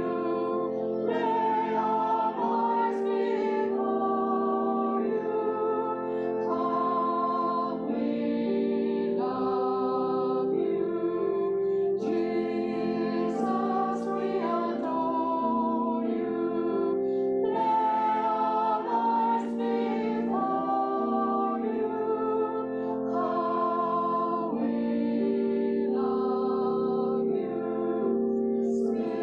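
Church choir and congregation singing a hymn, the voices moving over long held chords that change every second or two.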